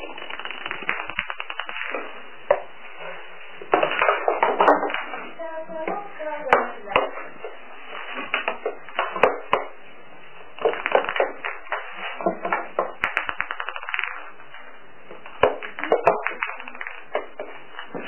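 Light plastic ping-pong ball clicking and skittering on a wooden parquet floor as a kitten bats it, some single sharp taps and some quick rattling runs, over voices in the room.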